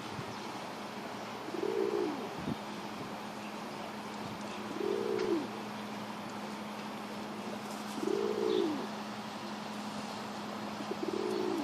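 Pigeon cooing while chasing another pigeon: four rising-and-falling coos, about one every three seconds.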